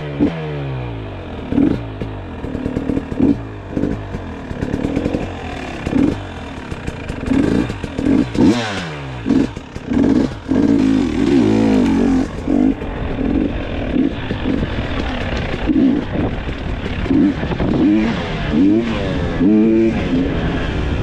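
GasGas EX 300's two-stroke single-cylinder engine revved in repeated short throttle bursts, its pitch dropping after each, with a longer held rev around the middle.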